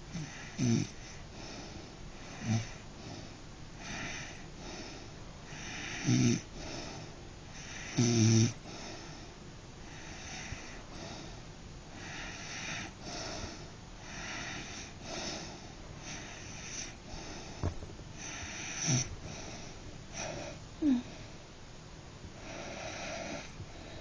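Snoring: a wheezy breath every couple of seconds, broken by several short loud snorts, the loudest about six and eight seconds in.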